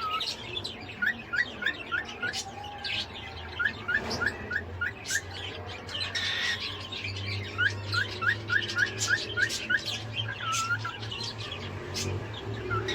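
Cockatiel whistling: three quick runs of about five short rising whistle notes each, with a longer dipping whistle near the start and again near the end, among sharp short chirps.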